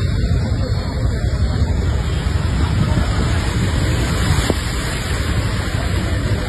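Steady rushing noise of heavy rain and floodwater with a heavy low rumble on the microphone, while a bus drives through the flooded road, its wheels pushing a wash of water.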